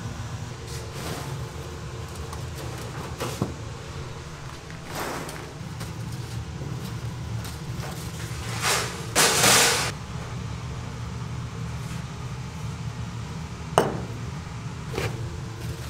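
A round sugar shaker shaken over fried twist donuts gives a rushing rattle for about a second near the middle, the loudest sound. Over a steady low hum of kitchen machinery, a few sharp metal knocks come from the stainless tray and wire rack, one a second or so before the end.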